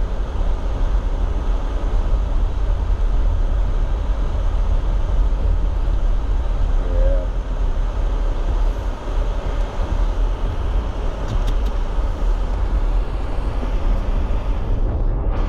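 Jeep Gladiator driving on a muddy trail, heard from inside the cab: a steady low rumble of engine and tyres.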